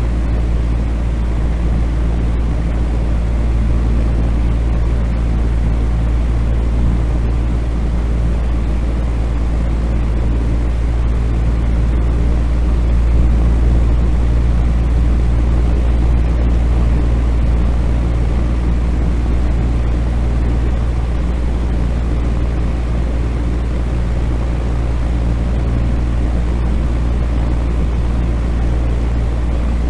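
Ventilation fan running steadily: an even rushing of air over a deep, constant hum, with no rise or fall.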